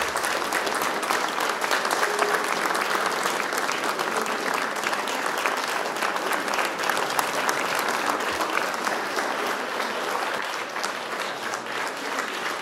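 Concert audience applauding: many hands clapping in a steady, dense patter that eases off slightly near the end.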